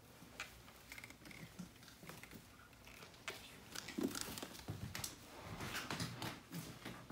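Footsteps on a hardwood floor with scattered light clicks, knocks and rustles of an accordion being carried and handled, the loudest knock about halfway through.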